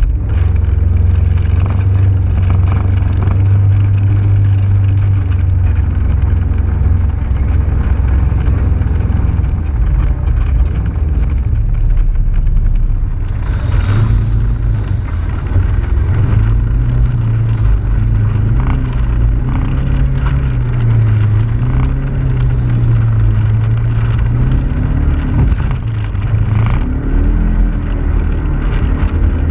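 Engine of a 2015 Polaris RZR XP4 1000 side-by-side, a 999 cc parallel twin, heard from on board as it drives a dirt trail, its pitch rising and falling with the throttle, with tyre and gravel noise under it. A brief rush of noise about halfway through.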